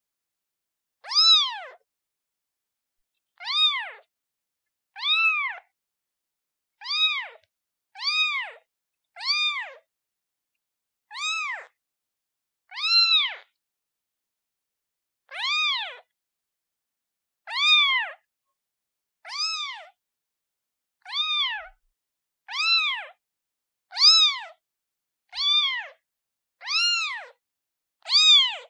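A kitten meowing over and over, calling for its mother: about seventeen separate meows, one every second and a half or so, each rising and then falling in pitch.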